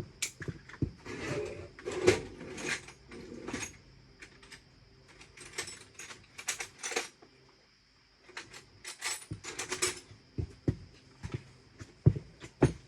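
Irregular metallic clinks, clanks and short rattles of hand tools working on the motorcycle's kickstarter bolt.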